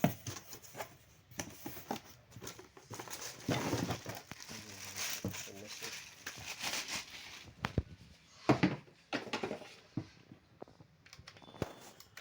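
Product packaging being opened and unwrapped by hand: irregular crinkling and tearing, with scattered sharp knocks as parts are handled.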